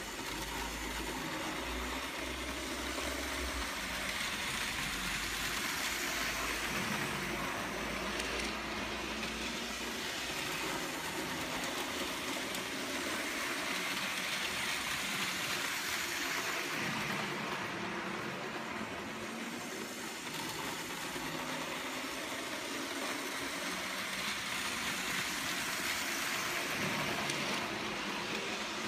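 Electric model trains running round a layout: a steady whirr and rattle of small motors and wheels on the track. It swells and fades several times as the trains pass.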